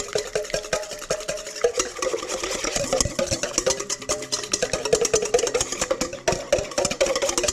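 Quick, continuous clinking and scraping of a utensil stirring in a bowl as seasonings are mixed, with a tune playing underneath.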